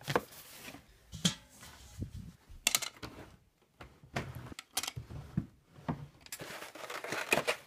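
Rummaging through a wooden dresser drawer full of clothes: irregular knocks and clicks of wood and handled objects, with rustling of fabric.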